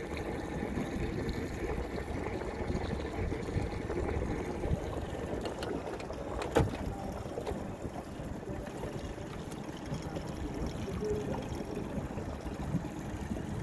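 Water sloshing and lapping against a boat on open water, with a single sharp knock about six and a half seconds in.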